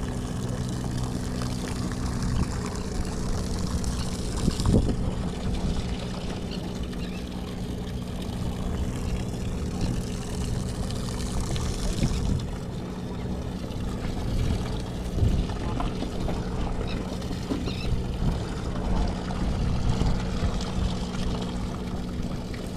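A fishing boat's engine running with a steady low hum, under a wash of water and wind noise, with a few brief knocks.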